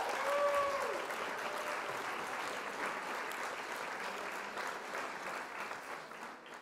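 Waffle batter sizzling and crackling on the hot plates of a Redmond electric multi-baker as the lid is opened, fading gradually toward the end.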